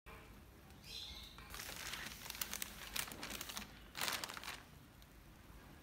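A thin plastic courier mailer bag crinkling as a hand presses and handles it, in several rustling bursts, the loudest about four seconds in.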